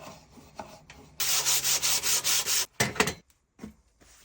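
OSB being abraded by hand, a rasp or sandpaper worked against the box's edges. It begins as a faint scraping, and about a second in comes a loud run of fast back-and-forth strokes, roughly four a second, lasting about a second and a half. A couple of sharp knocks follow after the strokes.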